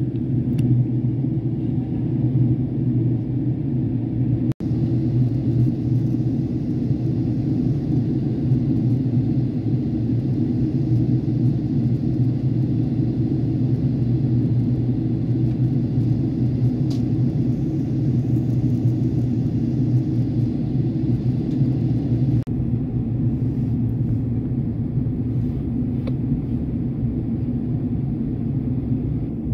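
Steady cabin noise of a Boeing 767-400ER in descent, heard from a window seat over the wing: the low rumble of the engines and airflow. The sound breaks off for an instant about four and a half seconds in, and the hiss above the rumble thins out a little past twenty seconds.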